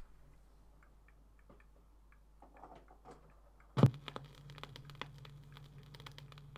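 Faint crackle and clicks of a vinyl record before the music starts. About four seconds in comes one loud thump, after which a steady low hum sits under denser crackle.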